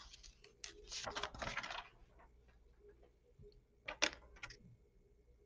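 Faint rustling and clicking of paper sheets being handled and swapped, then a few short, sharp clicks about four seconds in.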